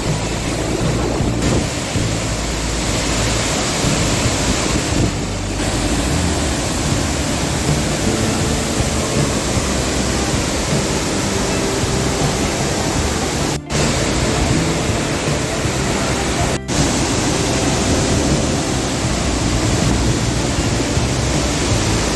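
Large waterfall pouring: a loud, steady rush of water spread evenly from low to high pitches. It cuts out for an instant twice, about two-thirds of the way through and again three seconds later.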